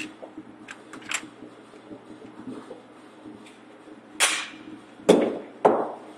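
Three sharp handgun shots ring out in an indoor shooting range, each with a short echo off the concrete. The first comes about four seconds in, the next two about a second and then half a second later. A few faint clicks of pistol handling come before them.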